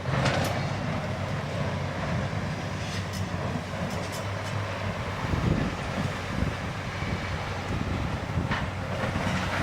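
Heavy diesel machinery running with a steady low rumble and hum, with a few light clanks.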